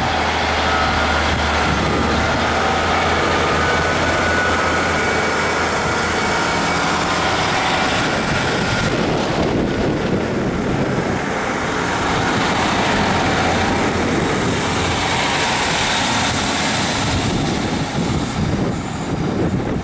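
Class 150 Sprinter diesel multiple unit pulling out and passing close by, its underfloor diesel engines running under power. A high whine rises over the first several seconds, and the sound drops away near the end as the rear cab passes.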